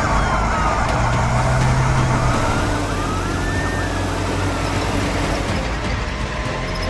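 Emergency-vehicle siren wailing, its pitch rising and falling slowly every couple of seconds, over the steady rumble of vehicles driving.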